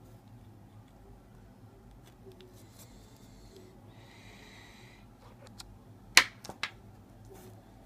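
Small handling noises from a car key fob being worked on by hand: soft rustling, then a sharp click about six seconds in followed by two lighter clicks.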